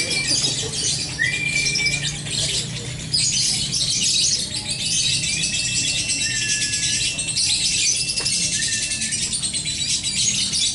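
A chorus of many caged songbirds chattering and singing at once, a dense rapid twittering throughout, with clear flat whistled notes cutting through every second or two.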